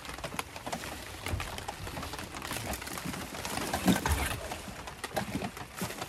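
Knocks and clatter of items being moved around in an open wooden camp-kitchen box, with a louder knock about four seconds in, over a steady hiss of rain.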